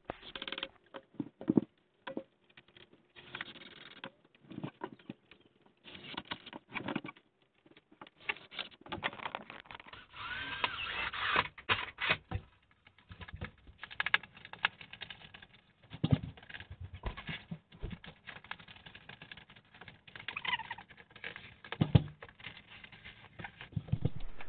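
Irregular small knocks, clicks and scraping from hands working materials at the floor and skirting board, with a short squeaky creak about ten seconds in.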